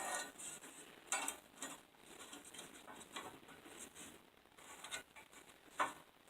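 Faint scratching and small clicks of marking out steel flat bar and handling a measuring tool on it, with a few louder scrapes about a second in and near the end.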